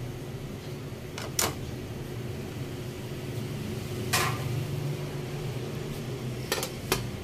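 A metal ladle clinking several times against a large aluminium cooking pan: two quick knocks a little after the start, a longer ringing knock about four seconds in, and two more near the end. A steady low hum runs underneath.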